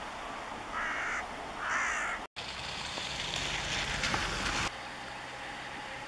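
Two short, harsh crow-like caws about a second apart over a steady background hum. After a brief dropout, a couple of seconds of louder even hiss follow and then stop abruptly.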